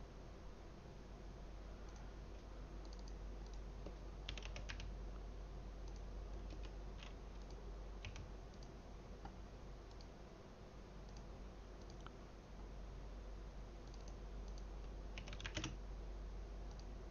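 Faint typing on a computer keyboard: scattered single keystrokes, with two quick runs of clicks, about four seconds in and near the end, over a low steady hum.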